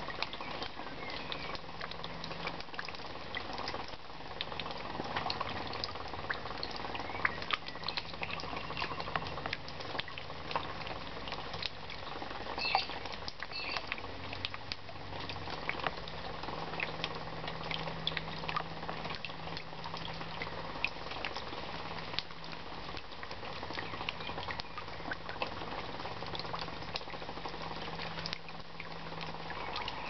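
Water drops falling into a shallow rain puddle: a steady patter of many small, irregular plinks and splashes on the water.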